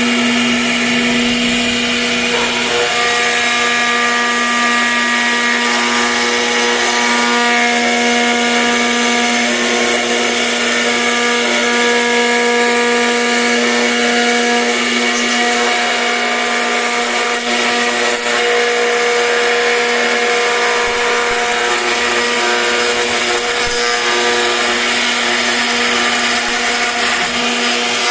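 CNC router spindle running steadily while carving wood: a constant whine made of several held tones, over the hiss of the bit cutting.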